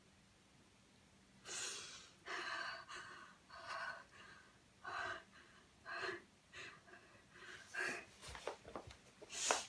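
A woman's short, heavy gasping breaths, about one a second, starting about a second and a half in and loudest near the end.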